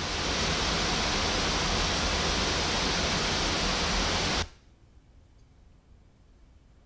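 Steady hiss of a noise test signal played through loudspeakers driven by a Buckeye Amps 3-channel Purifi 1ET400A amplifier, cutting off suddenly about four and a half seconds in. After it stops, only faint room tone remains, with no audible noise from the idle amplifier at maximum volume.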